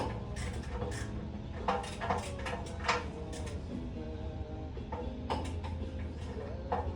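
Music playing on a car radio, with a steady low drone underneath.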